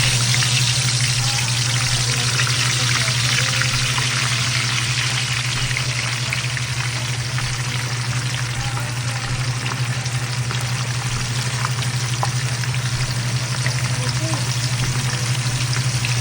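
Food frying in hot oil in a pan: a loud, steady sizzle with small crackles, over a steady low hum.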